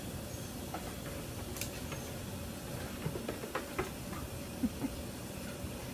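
Goats' hooves tapping and clicking on a hard platform: scattered light taps, bunched in the second half, over a steady background hiss.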